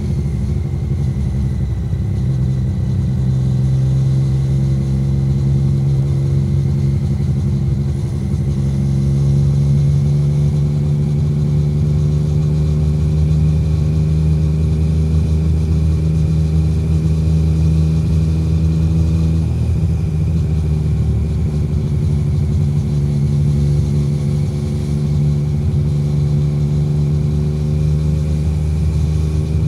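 A Triumph Street Triple 765R's three-cylinder engine running through an SC Project SC1-R titanium exhaust, heard on board with no wind noise. It holds low, steady revs at a slow pace, with the note rising gently and then changing once about two-thirds of the way in.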